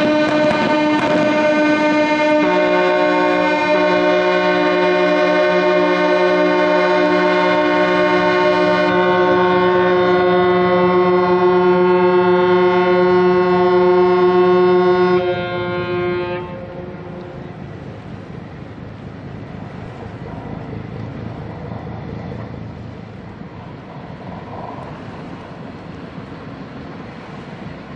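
Several ships' horns sounding long blasts together in a chord, with a lower horn joining a couple of seconds in; all of them stop about fifteen seconds in. They are a horn salute for a newly launched ship.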